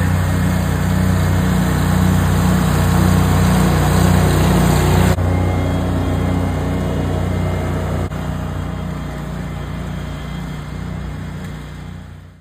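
Engine of a riderless Wright stand-on mower running under the Greenzie autonomous kit, a steady low drone. The sound drops abruptly about five seconds in and again about eight seconds in, then fades out near the end.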